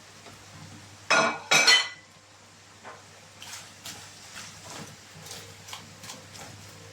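Cooking utensil clinking against a non-stick frying pan twice, ringing briefly, a little over a second in, followed by faint scraping and tapping as cabbage and vegetables are stirred in the pan.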